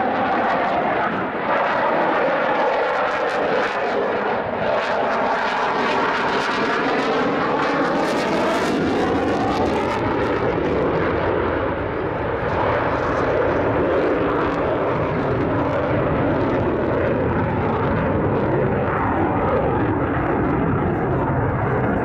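Eurofighter Typhoon's twin jet engines, loud and continuous throughout, as the fighter climbs away. Through the middle seconds the noise wavers and sweeps up and down in pitch as it passes overhead.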